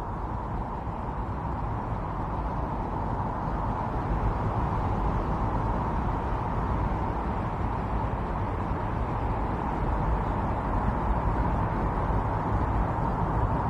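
Strong winter storm wind blowing steadily, a dense rushing noise with a deep rumble, swelling slightly a few seconds in.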